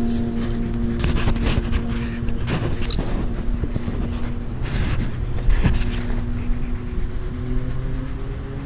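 Rumbling handling noise and scattered knocks from puppies bumping and nosing a camera at ground level, over a faint steady drone that weakens near the end.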